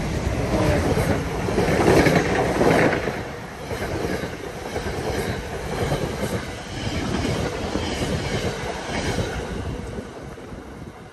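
Passenger train with an NJ Transit ALP-45DP locomotive passing close at speed, the locomotive's rush loudest in the first few seconds, then the coaches going by with wheels clicking steadily over the rail joints. The sound drops away sharply near the end.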